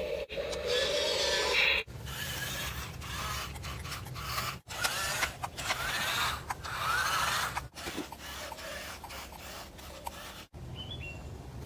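Electric motors, gears and hydraulic mechanisms of radio-controlled construction models whirring, clicking and grinding, cut between several short clips; whines rising and falling between about five and seven seconds in.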